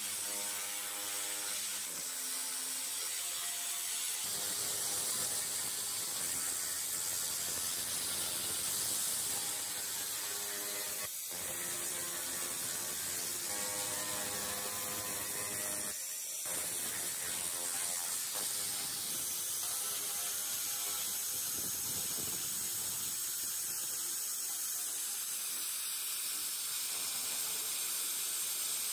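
Handheld 300W pulsed laser cleaner firing on rusty metal: a steady, rapid crackling buzz, stopping twice very briefly.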